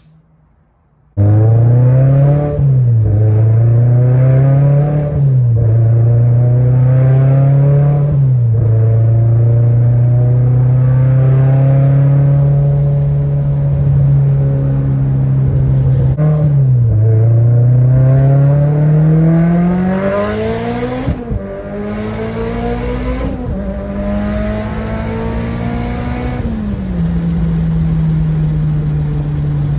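Mitsubishi Lancer Evolution X's turbocharged 2.0-litre four-cylinder engine pulling under acceleration. Engine pitch climbs and drops sharply at each gear change, several times, with a steady stretch in the middle.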